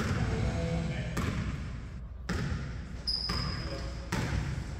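Basketball bouncing on a hardwood gym floor, the thuds echoing through a large hall, with distant players' voices calling out. A brief high squeak comes about three seconds in.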